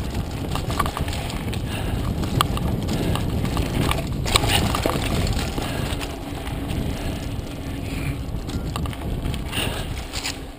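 Mountain bike descending a dirt trail at speed: a steady rush of wind and tyre rumble, with frequent rattles and knocks from the bike over bumps.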